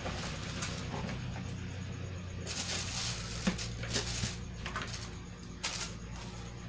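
A few sharp clicks and light knocks of parts being handled and fitted together over a steady low hum. The loudest click comes about three and a half seconds in, with others shortly after and near the end.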